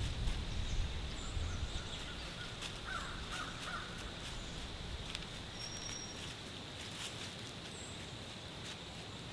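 Whitetail deer walking through dry fallen leaves, scattered crunching steps. A bird calls faintly a few times between about one and four seconds in.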